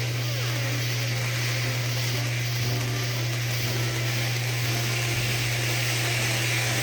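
A ground fountain firework burning with a steady, even hiss of spraying sparks.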